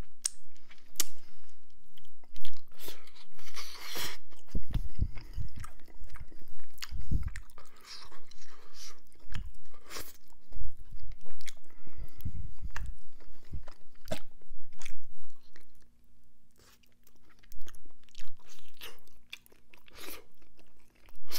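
Close-up mouth sounds of rotisserie chicken being chewed: wet chewing, lip smacks and fingers being licked and sucked clean, in irregular clicks and smacks. A few dull low thuds come along the way.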